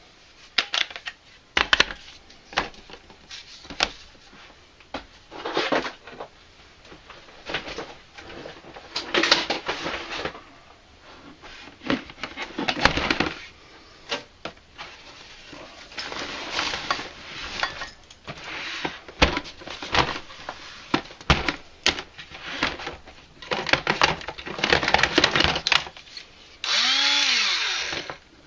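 Cordless power tools and their plastic battery packs being handled and set into a nylon tool bag and a plastic bin: repeated clunks, knocks and rustling. Near the end the Black & Decker 20V drill/driver runs briefly, its motor whir rising and then falling in pitch.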